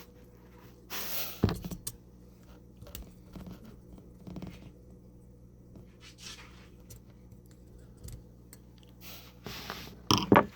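Small handling sounds from a 1.5 mm hex screwdriver backing out the two small screws holding a Traxxas TRX4M's plastic battery tray: scattered brief scrapes, rustles and sharp clicks, over a faint steady hum.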